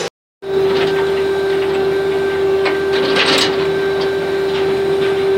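Ship's mooring winch machinery running with a steady hum at one pitch, with a few sharp metallic clanks about three seconds in. It starts after a moment's silence.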